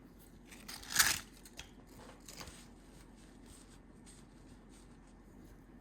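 A cloth wiping a ratchet: one loud rubbing swish about a second in, then a few faint scuffs and light clicks of the tool being handled.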